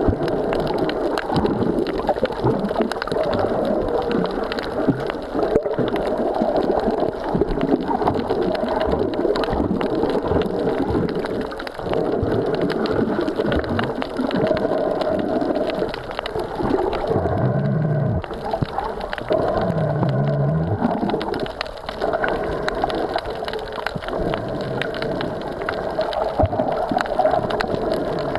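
Sea water washing and gurgling over a stony shore in a continuous, crackling rush, with two brief low wavering sounds about two-thirds of the way through.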